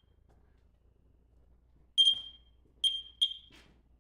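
A ghost-hunting trigger ball beeping: three short, high-pitched electronic beeps, the first about two seconds in and the other two close together about a second later. To the investigators each beep signals that the ball has sensed a touch or energy.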